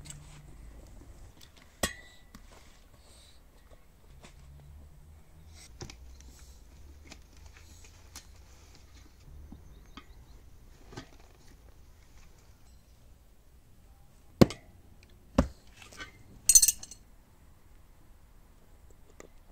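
A steel tyre lever clinking and knocking against the spoked rim of a Ural motorcycle wheel as a tyre and inner tube are worked on by hand. There are scattered light clicks, sharp loud clinks about 2, 14 and 15 seconds in, and a brief high hiss-like noise a little after.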